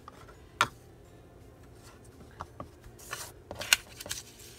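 Craft-table handling sounds: sharp plastic clicks and taps as a Distress Ink pad case is opened and its lid set down, and a short rub of paper about three seconds in, followed by a few more clicks.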